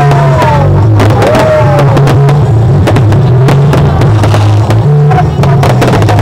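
Fireworks banging and crackling in quick succession over loud music from a sound system with a steady bass line. The recording is overloaded.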